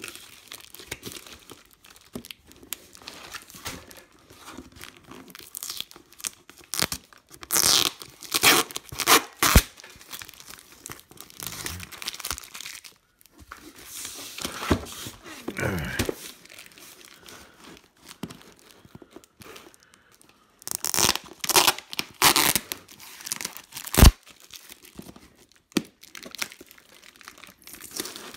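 Clear plastic wrapping crinkling and tearing as it is pulled off a cardboard box, in several loud rips with quieter rustling between, and one sharp knock on the box near the end.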